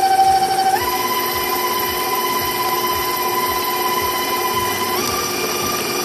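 Electric stand mixer running with its flat beater creaming a thick wet gingerbread dough mix in a steel bowl. Its steady motor whine steps up in pitch about a second in and again near the end as the speed is raised.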